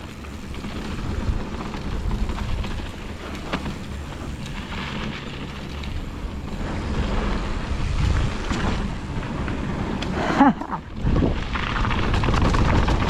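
Wind rushing over a GoPro's microphone with the rumble and rattle of a mountain bike rolling fast down a dirt trail, scattered with clicks from the bike. A short falling tone cuts through about ten seconds in.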